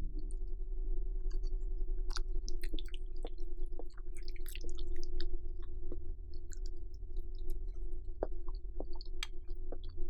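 Eating sounds: soft, scattered wet clicks and smacks of chewing mac and cheese, over a steady electrical hum of several fixed tones.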